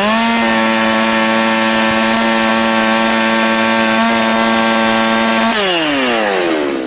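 Echo CS-600P two-stroke chainsaw revved sharply to full throttle and held at a high, steady pitch for about five seconds. The throttle is then released and the engine note falls away.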